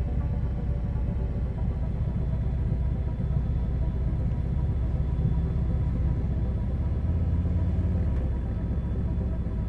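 Harley-Davidson V-twin motorcycle engine running at road speed, heard from the rider's own bike. Its low rumble grows louder for a second or so about seven seconds in.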